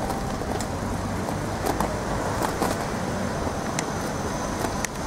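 Handlebar-mounted camera on a moving bicycle clattering and rattling as the bike rolls over the street surface, a continuous low rumble broken by scattered knocks.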